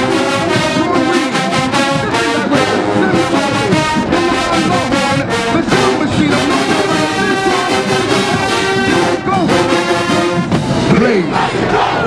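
Marching band playing: a large brass section (trombones and trumpets) carries the tune over drums keeping a steady beat.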